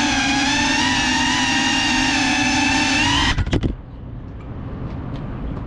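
GEPRC Cinelog 35 FPV drone's motors and propellers whining at a steady pitch, then cutting off abruptly with a few stuttering spurts about three and a half seconds in as the motors stop.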